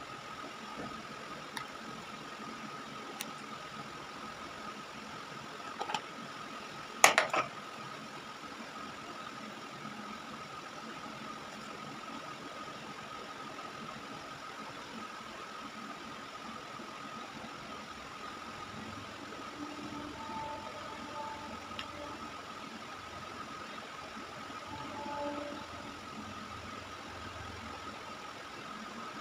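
Steady mechanical hum with a constant thin whine, and a short sharp clatter about seven seconds in.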